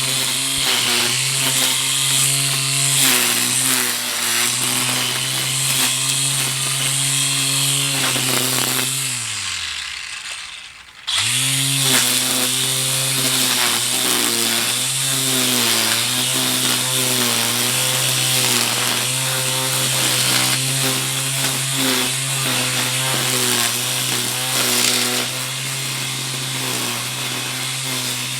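Small petrol engine of a handheld garden power tool running at high revs, its pitch wavering as it works. About nine seconds in it winds down almost to nothing, then is abruptly back at full speed.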